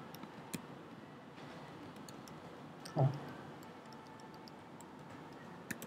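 A few scattered keystrokes on a computer keyboard as a command is typed slowly into a terminal, with a short, louder low thump about three seconds in.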